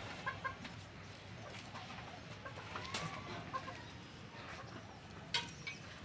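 Chickens clucking in short, soft calls, with a couple of sharp knocks, one about halfway through and one near the end.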